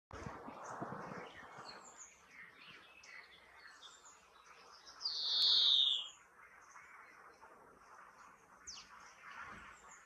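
European greenfinch giving one long, wheezy, falling call about five seconds in, with faint high chirps around it.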